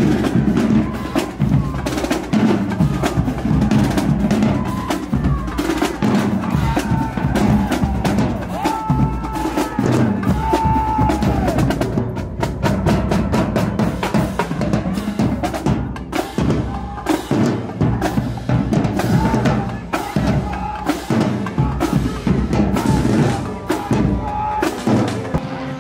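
Marching band drumline playing: snare and bass drums beating throughout, with a few held brass notes in the middle.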